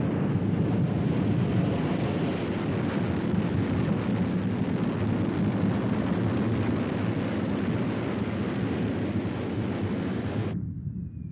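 Steady roar of a V-2 (A4) rocket's liquid-fuel engine at lift-off. About ten and a half seconds in, the roar cuts off and a fainter falling whistle follows.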